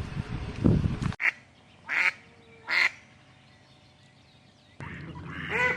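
About a second of low rumbling, then ducks quacking: three short separate quacks, and near the end a quick run of quacks.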